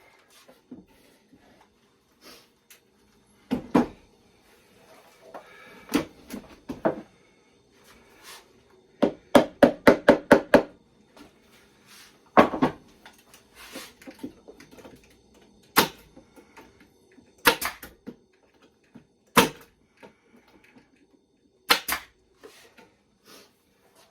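Sharp single shots and knocks of a pneumatic nail gun and wooden pieces being fastened on a plywood box, spaced a few seconds apart, with a quick run of about eight taps around ten seconds in.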